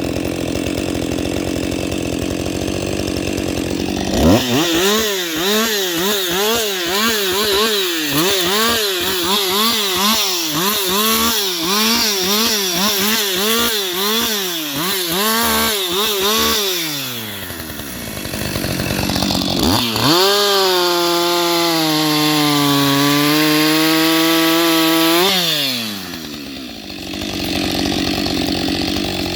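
Husqvarna 560XP two-stroke chainsaw, first running at low revs. About four seconds in it is throttled up and held at high revs, the pitch rising and falling over and over, then drops back. A second stretch at full throttle follows, the pitch sagging under load in the middle before it falls back near the end.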